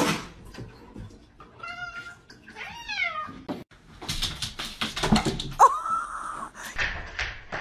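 A cat meowing twice, about a second apart, the second call falling in pitch. Then a run of knocks and taps with a brief rising cry partway through.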